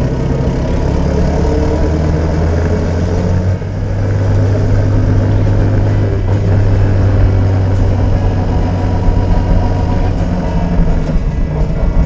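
The APTrikes125 trike's engine running through its repaired muffler, with a steady low note. About three and a half seconds in, the sound dips briefly and then settles at a higher engine speed.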